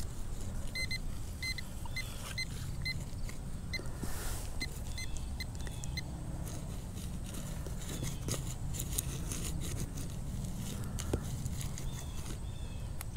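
Metal detector beeping: short, high electronic beeps, all at the same pitch, in quick groups of two or three, thinning to single beeps and stopping about five seconds in. Under them run a low steady rumble and a few small clicks.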